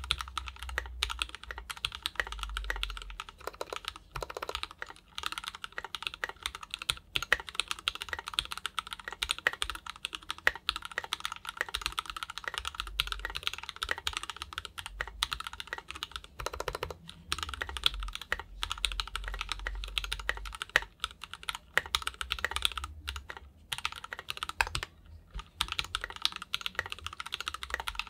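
Fast continuous typing on a mechanical keyboard with SP-Star Meteor White linear switches in a KBDFans 5 Degree board, a dense run of keystroke clacks with a few brief pauses.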